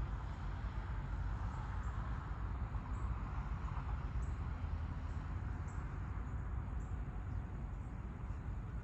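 Outdoor ambience: a steady low rumble with a broad hiss that swells and eases, and short high bird chirps about once a second.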